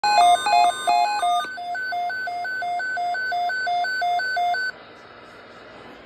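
Midland S.A.M.E. weather alert radio sounding its electronic alert beeps for a tornado watch. A busier run of mixed tones comes first, then a regular two-pitch beep, low then high, about three times a second. It cuts off suddenly three-quarters of the way through, leaving a faint hiss.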